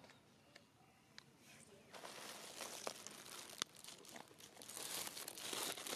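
Faint rustling and crinkling with scattered sharp clicks, starting about two seconds in and growing louder toward the end.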